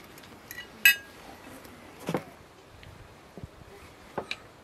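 Tableware clinking during a meal: spoons, plates and cups knocking together. A sharp ringing clink about a second in, a duller knock about two seconds in, and two lighter clicks near the end.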